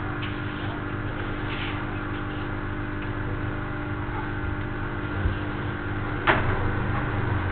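Steady background hum and hiss with no speech, and a single sharp click about six seconds in.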